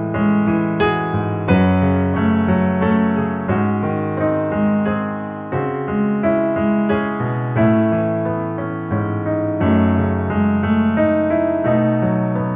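Background music of slow, held keyboard chords, the notes changing every half second to a second.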